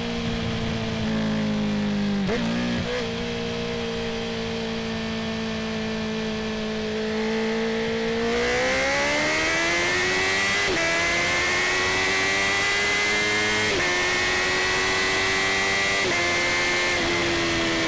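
Honda CB650R's inline-four engine with an Akrapovic titanium full exhaust: it holds steady revs, then accelerates from about eight seconds in, its pitch climbing, with a quick small drop in revs several times as it shifts up.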